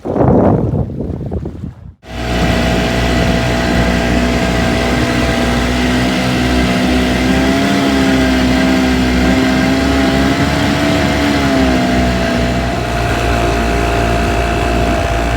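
Boat motor running at a steady speed, its pitch rising and falling slightly twice, after about two seconds of wind buffeting the microphone.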